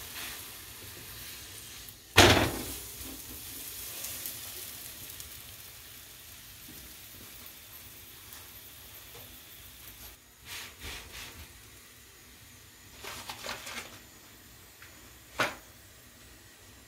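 Butter-fried gobi paratha (cauliflower-stuffed flatbread) sizzling softly on a nonstick pan, the sizzle fading over the first few seconds. About two seconds in comes a sharp thump, the loudest sound, and later a few light clicks and knocks.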